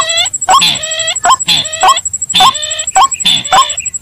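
Bird-lure recording of rails calling: white-breasted waterhen (ruak-ruak) and sintar ladang crake calls mixed together. Loud, harsh calls repeat about twice a second, each with a quick upward hook in pitch, over a faint steady high whine.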